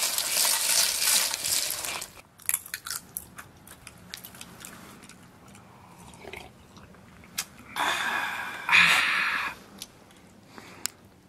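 Roasted sunflower seeds poured and scraped off a wok onto a metal tray, a dense rattling hiss that stops suddenly about two seconds in. Then scattered small clicks and crunches, and about eight seconds in a loud sipping from enamel mugs.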